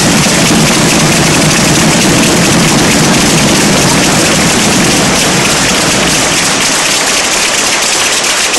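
Crowd applauding in a basketball arena: loud, dense clapping that eases slightly in the second half.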